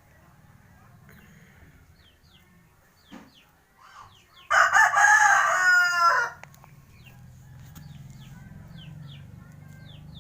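A rooster crowing once, loud and about two seconds long, its pitch dropping away at the end. Short faint high chirps sound before and after it.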